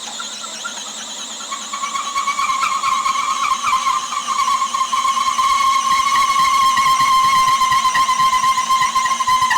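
DeWalt 20V cordless hammer drill boring a bit into lumber: a steady motor whine that grows louder a couple of seconds in, its pitch sagging slightly as the bit loads up in the wood.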